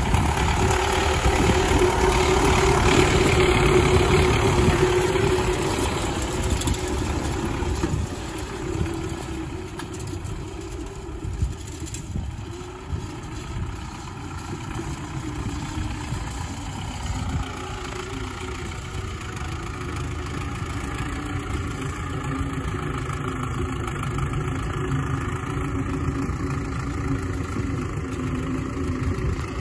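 Belarus tractor's diesel engine running steadily under load while pulling a wheel hay rake. It is loudest for the first several seconds, then softer and even.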